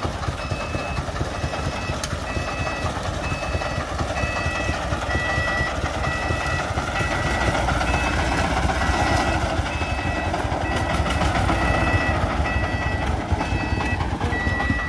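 Loaded công nông dump truck reversing, its single-cylinder diesel running under load while a reversing beeper sounds a two-tone alternating beep about twice a second.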